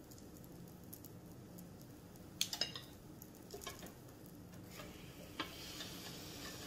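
Metal spoon clinking and scraping as krumkake batter is spooned onto an electric krumkake iron. About five and a half seconds in the lid clicks shut and the batter starts to sizzle between the hot plates.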